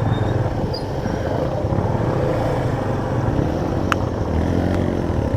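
Motorcycle engine running steadily at low speed, with a single sharp click about four seconds in.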